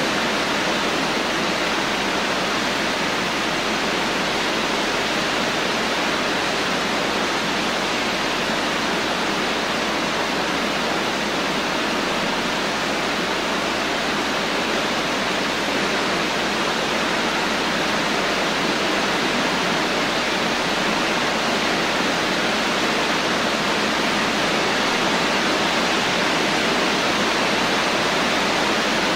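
Steady rainfall: an even, unbroken hiss of rain with no thunder and no single drop hits standing out.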